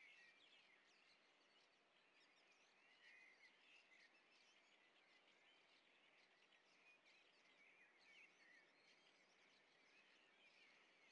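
Near silence: faint, distant chirping of small birds, many short chirps running on continuously over a light outdoor hiss.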